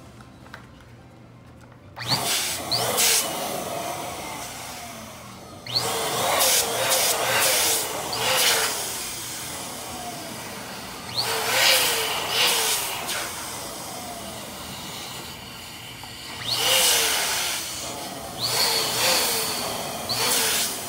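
Electric balloon pump switched on about two seconds in, its motor blowing air steadily into a latex balloon. The blowing noise swells louder several times, with short squeaks over it.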